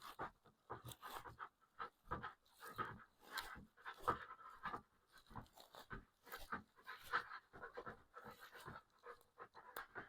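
Faint, quick panting breaths, a few puffs a second in an uneven rhythm.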